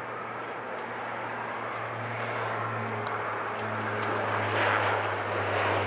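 Boeing 777-300ER's GE90 turbofan engines running at taxi power: a steady jet rumble with a low hum, growing louder over the last couple of seconds.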